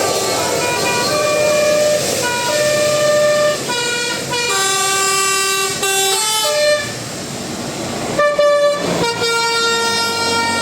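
Bus telolet horn, a multi-tone musical air horn, playing a tune of held notes that step from pitch to pitch every half second or so.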